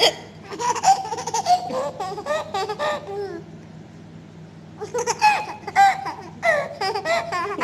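Baby laughing in two bouts of giggles with a pause of about a second and a half between them, after a short sharp sound at the very start. It is a baby's amused laughter at its mother's hiccups.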